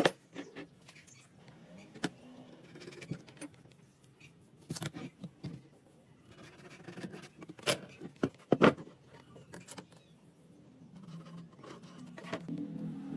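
Scattered sharp knocks and clicks of objects being handled, the two loudest a little under a second apart past the middle, with a low hum building near the end.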